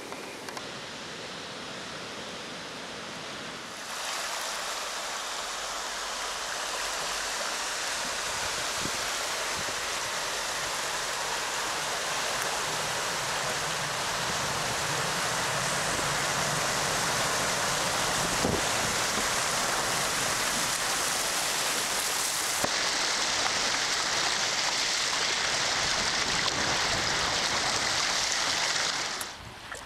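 Rushing water of a shallow river riffle, heard from a kayak running down it: a steady rush that steps up sharply about four seconds in.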